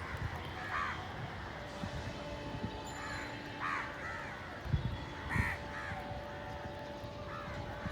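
Several crows cawing, short harsh calls coming every second or so. Two low thumps about five seconds in are the loudest moments, over a faint steady hum.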